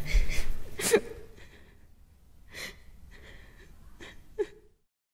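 A young woman crying, sobbing with three sharp gasping breaths with a catch in the voice, the last near the end, after which the sound cuts off to dead silence.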